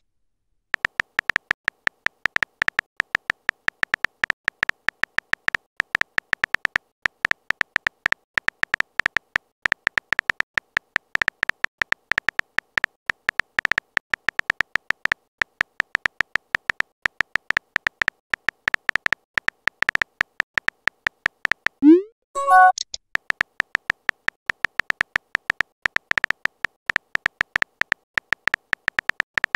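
Keyboard typing sound effect from a texting-story app: a rapid stream of short clicks, one per typed letter. About 22 seconds in the clicks pause for a short rising pop-and-chime, the message-sent sound.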